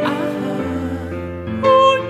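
Music: slow, sustained chords, with a wavering held note coming in about a second and a half in.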